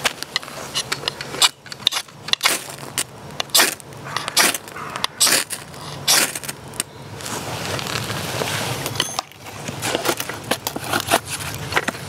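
Ferrocerium rod struck hard with a striker over tinder, a series of sharp scrapes about one a second throwing sparks to light a campfire. There is a steadier rustle near the middle, and a few more scrapes follow near the end.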